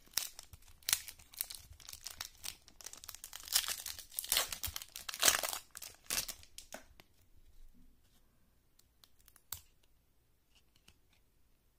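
Foil wrapper of a 1997 Playoff Contenders football card pack being torn open and crinkled, loudest a few seconds in. After about seven seconds it gives way to a few soft clicks and rustles as the cards are handled.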